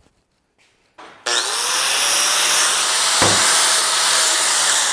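Angle grinder with a flap disc switched on about a second in, its motor spinning up with a rising whine, then grinding the cut edges of steel frame pieces with a loud, steady hiss. There is one sharp knock partway through.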